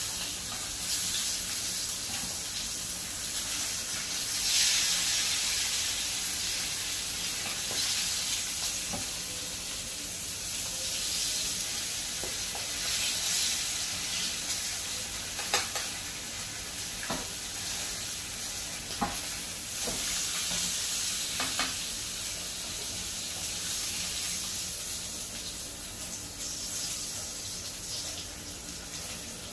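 Salmon fillets sizzling as they pan-fry in oil, the sizzle swelling and easing, with several sharp clicks of metal tongs against the frying pan in the second half as the fillets are turned.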